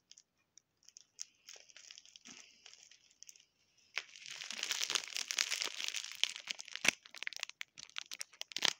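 Clear plastic adhesive-tape wrapping crinkling and crackling as it is handled, faint at first, then loud and continuous from about four seconds in, with sharp crackles.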